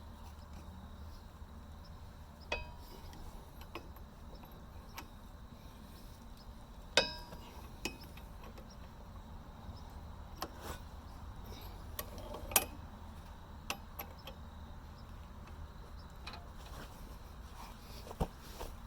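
Scattered metal clinks and knocks of tools and steel parts being handled, about ten in all, a couple of them ringing briefly like struck steel.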